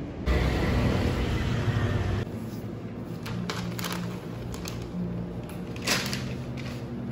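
Room tone of a small bakery shop: a low steady hum with scattered light clicks and knocks. It follows about two seconds of louder rushing noise.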